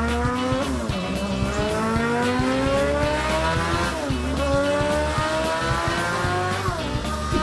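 A racing motorbike engine sound revving up through the gears: the pitch climbs steadily, drops back sharply as if shifting, and climbs again, three times. It plays over background music with a steady beat.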